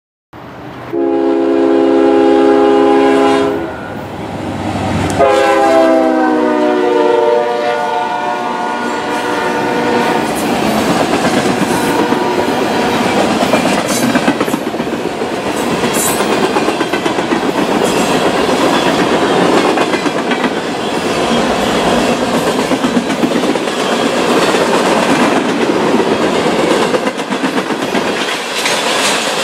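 Horn of a CSX freight train's lead GE ES40DC locomotive sounding two long blasts, the second dropping in pitch as the locomotive passes. After that comes the steady rolling noise and clickety-clack of loaded refrigerated boxcars going by.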